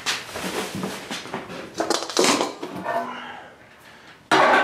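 Loose wood shavings rustling and pattering as handfuls are scooped from the bale bag and dropped into a plastic tote. Near the end comes a sudden louder clatter with a brief ring as a metal cookie tray is handled.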